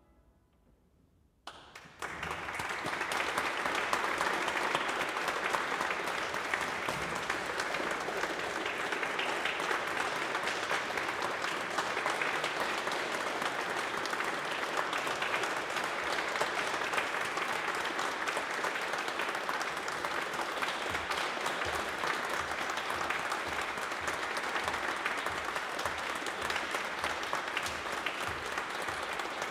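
Audience applauding: after a second and a half of near silence, dense steady clapping starts and continues without let-up.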